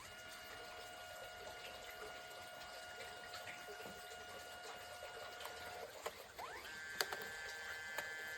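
Kodak Mini Shot 3 Era's built-in dye-sublimation photo printer running a print pass: a steady motor whine that stops about six seconds in, then a higher whine and two sharp clicks as the paper is moved on.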